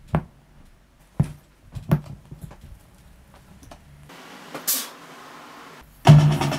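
Three heavy thuds about a second apart, followed by fainter clicks, then a low hiss with one brief swish. A drum-led beat cuts in suddenly about six seconds in.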